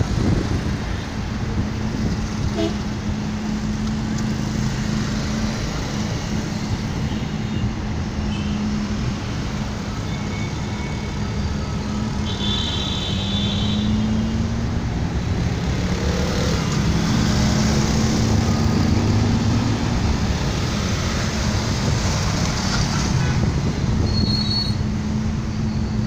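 City street traffic heard from a moving vehicle: a steady rumble of engines and tyres with a constant low hum. Brief high-pitched tones stand out about halfway through and again near the end.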